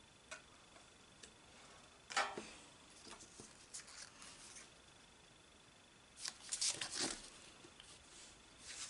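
Pokémon trading cards sliding and rubbing against each other as a small stack is fanned out and squared up in the hands: soft rustles and light taps, one louder rustle about two seconds in and a quick cluster of them around six to seven seconds.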